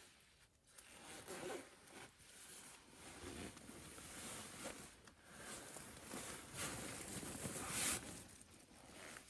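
Sleeping bag fabric rustling and swishing as a person shifts inside it and pulls it up around himself. There are uneven swishes throughout, with the loudest one near the end.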